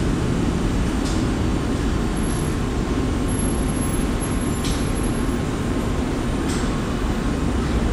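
Steady rumbling noise of a New York City subway train at the station, with a faint high steady whine.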